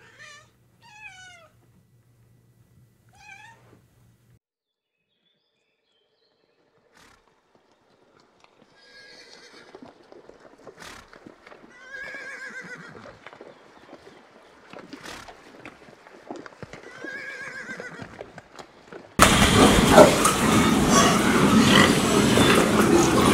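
A cat meows a few times, each meow falling in pitch, then a few seconds are nearly silent. Horses whinny three times over a rustle of movement. About nineteen seconds in, the much louder noise of a crowded pen of pigs grunting cuts in suddenly.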